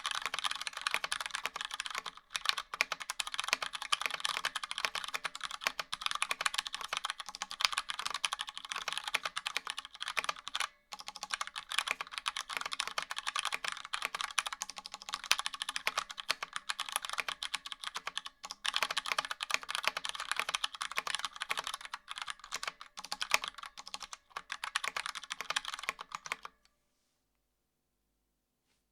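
Fast typing on a DK Saver mechanical keyboard with Cherry MX Brown switches in an aluminium case, fitted with Cherry G81-3100 keycaps: a dense, steady stream of key clacks with two brief pauses, stopping a couple of seconds before the end.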